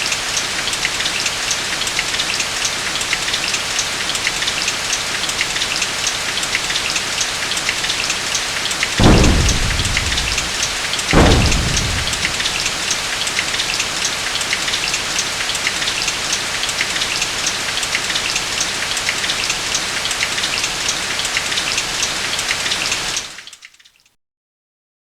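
Heavy rain falling steadily, with two thunderclaps about nine and eleven seconds in, the loudest moments; the rain fades out near the end.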